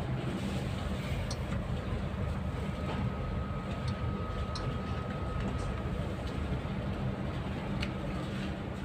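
Steady low hum of machinery and equipment, with a faint high whine for about three seconds in the middle and a few light clicks.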